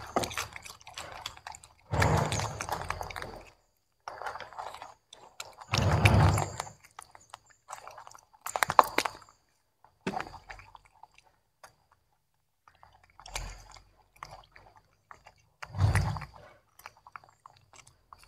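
Young macaque monkeys biting and chewing broccoli florets, crunching in about six short bouts with quiet gaps between.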